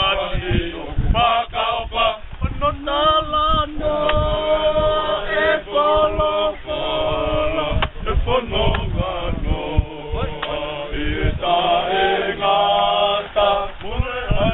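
A group of men singing together unaccompanied, in phrases of long held notes with short breaks between them.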